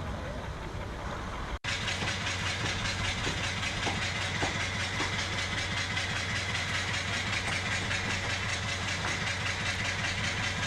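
An engine running steadily with a low, even hum. The sound drops out suddenly for an instant about a second and a half in, then carries on.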